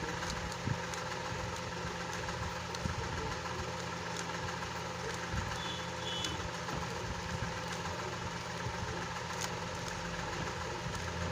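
A steady machine hum runs throughout, with a few faint clicks from a Rubik's cube's layers being turned and two brief high chirps about six seconds in.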